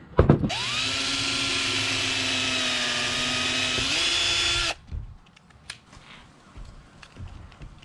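Cordless drill driving a screw into a wooden skateboard deck: a knock, then the motor runs steadily for about four seconds, steps up slightly in pitch just before it stops, and cuts off sharply.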